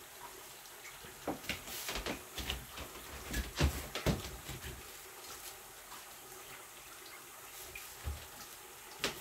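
Light clicks and knocks of small objects being handled, busiest between about one and four seconds in, with one more near the end, over a faint steady hiss.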